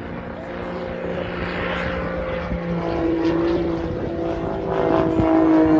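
Propeller engine of an aerobatic Pitts biplane, a six-cylinder Lycoming, running as the plane flies its display. Its pitch shifts partway through, and it grows louder toward the end.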